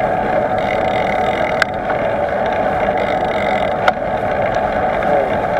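Steady rolling noise of a bicycle ridden along a road, tyres and rushing air, with two short sharp clicks, one about a second and a half in and one near four seconds.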